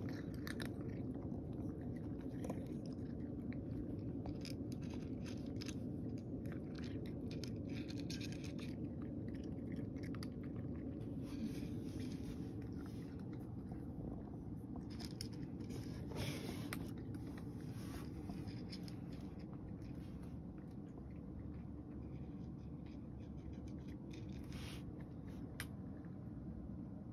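A cat eating from a dish: irregular wet chewing with small crunches and clicks, over a steady low hum.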